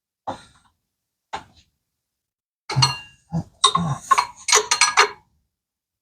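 Metal hand tools clinking and knocking against each other and the engine: two light knocks, then a quick run of sharp, ringing metallic clanks in the second half that stops abruptly.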